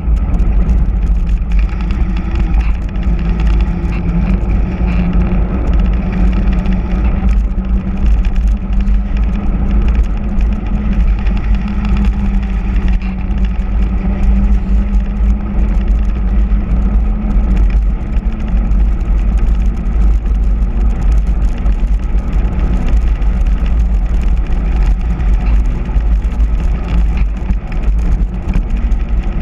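Wind rushing over the microphone of a mountain bike descending a paved mountain road at speed, with a steady hum from its all-terrain tyres rolling on the asphalt.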